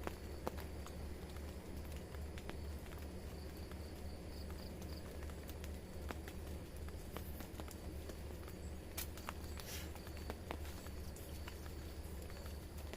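Rain drops pattering and dripping in irregular ticks over a steady low rumble of rain.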